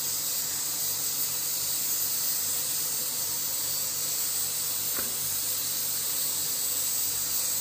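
A steady high-pitched hiss, with one faint click about five seconds in.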